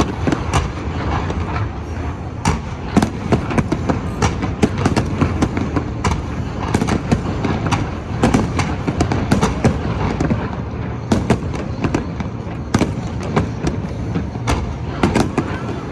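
Fireworks display: a dense, irregular barrage of sharp bangs and crackles over a continuous low rumble of explosions.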